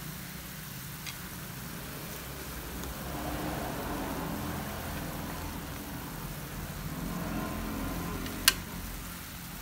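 A steady engine-like hum that swells through the middle seconds and eases off again, with one sharp click near the end as chopsticks knock against the pan.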